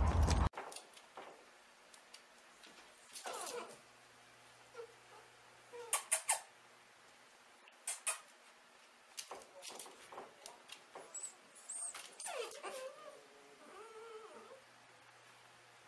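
A litter of Doberman puppies whimpering and giving short yips now and then, with scattered sharp clicks and taps. A loud rush of noise cuts off suddenly about half a second in.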